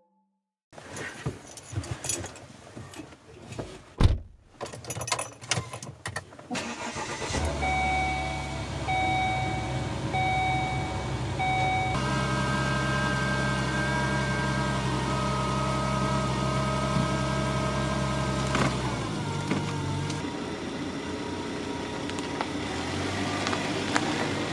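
Car interior sounds: rustling and clicks with a sharp thump about 4 s in, then a car engine starting about 7.5 s in and running steadily. A dashboard chime beeps repeatedly, about once a second, for several seconds after the engine starts.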